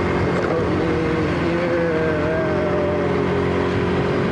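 Motor scooter's small engine running steadily while cruising, with wind noise on the microphone.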